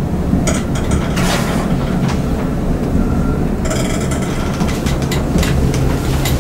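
LUTZ glass elevator car travelling in its shaft: a steady low running hum with scattered rattles and clicks.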